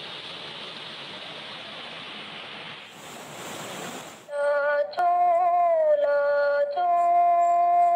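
Water rushing over rocks in a stream. About four seconds in, a louder voice comes in singing long held notes, sliding down in pitch once before settling on a higher note.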